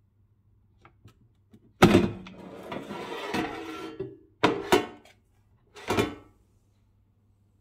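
Cosori air fryer basket pulled out of the unit: a sudden clunk as it comes free, a scraping slide lasting about two seconds, then three sharp knocks as the basket is handled.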